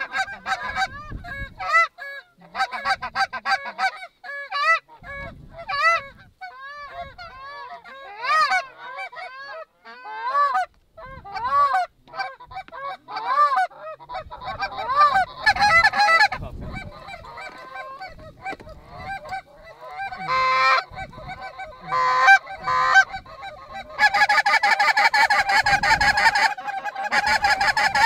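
Canada geese honking again and again, many short rising-and-falling honks overlapping. Near the end a steady held tone over a hiss takes over.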